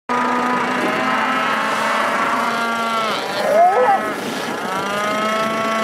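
Bull bellowing: two long, drawn-out calls, each dropping in pitch as it ends, with a shorter, higher, rising-and-falling call between them about three and a half seconds in, the loudest moment.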